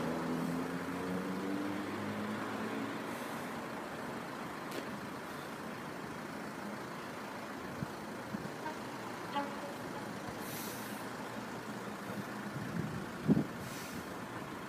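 Steady low rumble of distant vehicles. In the first few seconds an engine note climbs in pitch as a vehicle pulls away, then fades. A few faint clicks follow.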